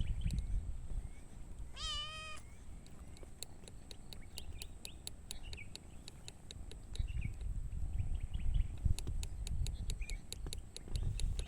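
A cat meows once, about two seconds in, a short call that rises then holds its pitch, with a few faint higher cries around it. Rapid faint clicking and a low rumble run under it through the rest.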